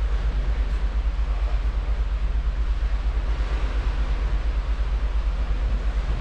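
The Holland America Koningsdam cruise ship under way, heard from its stern: a steady low rumble with a fast, even throb over a rushing hiss of wake water and air.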